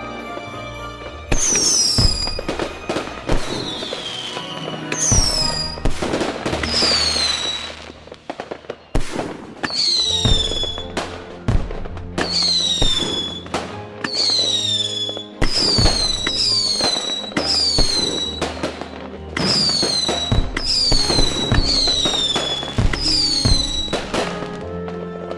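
Whistling fireworks in rapid succession: many shrill whistles, each falling in pitch over about half a second, mixed with sharp bangs. Background music plays underneath.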